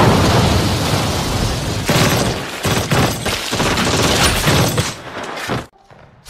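Film battle sound effects: dense gunfire and explosions with a run of sharp blasts, dropping away near the end.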